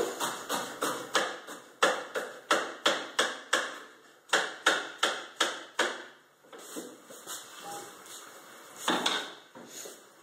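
A kitchen knife chopping on a cutting board: a steady run of sharp strikes about three a second, with a brief break about four seconds in, stopping about six seconds in. One louder, longer noise near the end.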